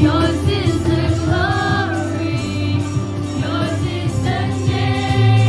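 Live praise-and-worship song: a band with bass and guitars accompanies a lead singer on a microphone, with a crowd singing along.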